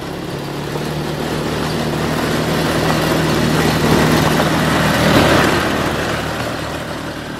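ATV engine running as the quad bike approaches along a dirt track and passes close by. It grows louder to a peak about four to five seconds in, then fades as it moves away.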